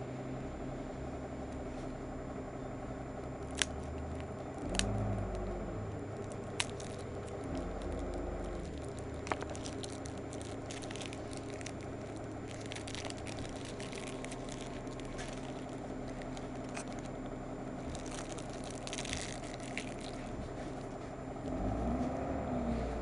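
Pack of 5 React chewing gum being handled and opened: a few sharp clicks, then two stretches of crinkling from the paper-and-foil wrappers, over a steady low hum.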